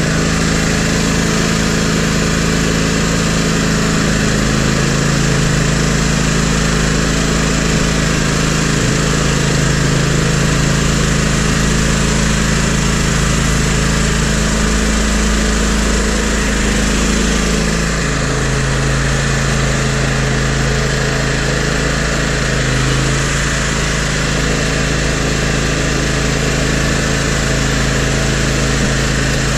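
Toro GrandStand MultiForce stand-on machine's engine running steadily while it works a front snow plow blade. The engine note shifts slightly about halfway through.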